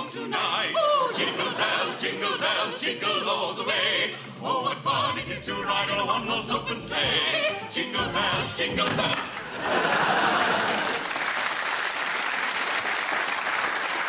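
A group of voices singing in a choral, operatic style for about nine seconds, then the studio audience breaks into applause, which carries on to the end.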